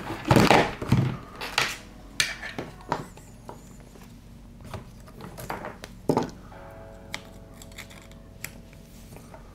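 Handling noise from cables and a small USB power meter on a silicone work mat: a cable dragged across the mat in the first second, then scattered light clicks and knocks as a plug is pushed into the meter. A faint steady tone sits underneath in the second half.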